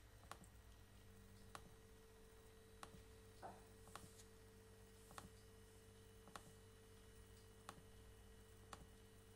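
Near silence: room tone with a faint steady low electrical hum and faint clicks about once a second.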